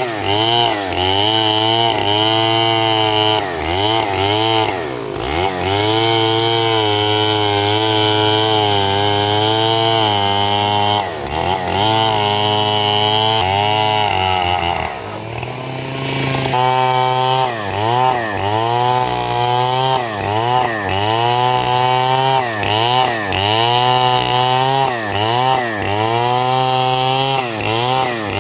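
Stihl chainsaw at high revs cutting through small 6×6 cm wood, the engine note dipping under load and recovering about once a second as it bites into each cut. Around the middle the engine drops back briefly, then revs up again.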